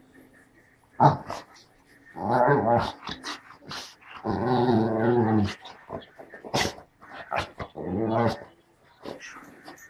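English springer spaniel 'talking': three drawn-out, wavering grumbling growls, the middle one longest at over a second, made while rolling on its back on carpet. Short sharp scuffing and snuffling noises fall between them.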